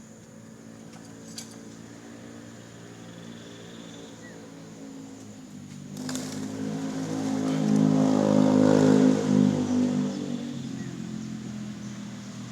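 A motor vehicle's engine passing by: its steady hum swells about halfway through, peaks, then fades away.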